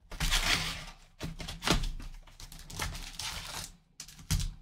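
A cardboard hobby box of baseball cards being torn open and its wrapped card packs pulled out onto the table: a run of crinkling, tearing bursts with a few sharp knocks.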